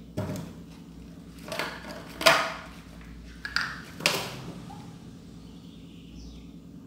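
A large plastic bottle being handled: five knocks and crinkles of plastic, the loudest a little after two seconds in, over a steady low hum.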